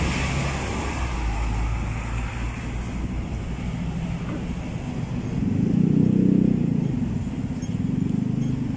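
Road traffic on a city street: motor vehicle engines running close by, with a louder engine sound rising and falling about six seconds in.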